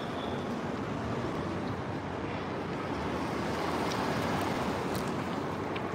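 Steady city street traffic noise with wind on the microphone, swelling slightly a little past the middle.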